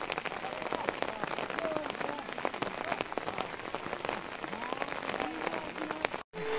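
Steady rain falling, with many sharp drop hits close by. It cuts off suddenly near the end.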